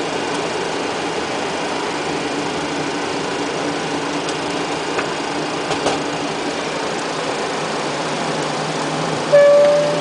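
Steady flight-deck noise of a Boeing 737 with its engines running: a constant hum with a couple of low steady tones under an even hiss of air-conditioning air. Near the end a short, loud, steady tone sounds for under a second.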